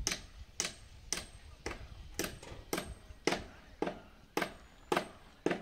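Sharp, evenly spaced clicks or taps, about two a second, which stop near the end.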